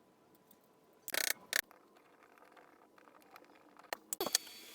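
A few short, sharp clicks and knocks of small objects being handled: two about a second in and a quick cluster near the end, with a faint steady hum after them.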